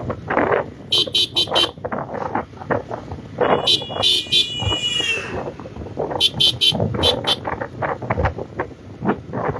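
Vehicle horns honking: a run of four quick beeps about a second in, a longer horn blast in the middle, and another run of four quick beeps a few seconds later. Under them, wind buffets the microphone of a moving motorcycle.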